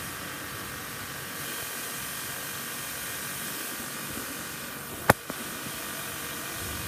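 Pressure washer spraying water onto a car, a steady hiss with a faint motor whine, broken by a sharp click about five seconds in.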